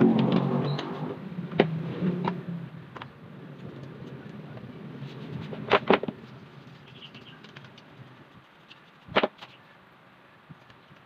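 Handling noise as an electric fan's plastic housing and covers are fitted back on. A rattling stretch at first, then a few sharp clicks and knocks, the loudest a quick pair about six seconds in and one about nine seconds in.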